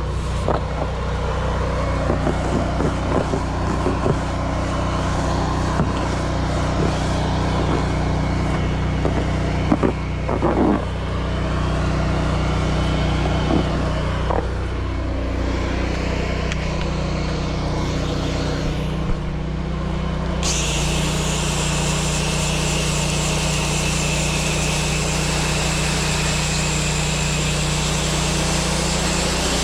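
Gas pressure washer engine running steadily, with scattered clicks and knocks. About two-thirds of the way in, the high hiss of the spray jet starts suddenly and holds steady.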